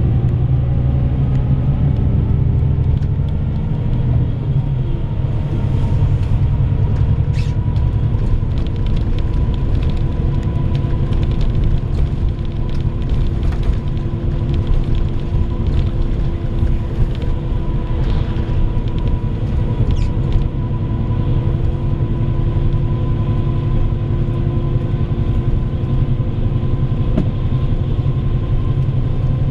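Inside a moving bus: steady diesel engine and road rumble, with an engine whine that rises in pitch over the first few seconds as the bus gathers speed, then holds level. A couple of brief light rattles come through.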